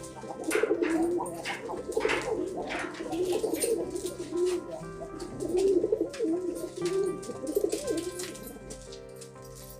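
Domestic pigeons cooing over and over, with short sharp clicks scattered between the coos.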